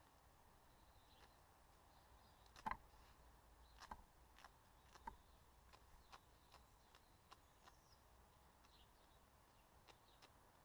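Quiet, sporadic small clicks and rustles of a wood pigeon's breast feathers being plucked out by hand, the sharpest about three seconds in, with a few more over the next couple of seconds.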